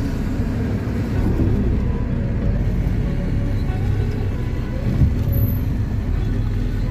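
Steady low road and engine rumble heard from inside a moving car's cabin.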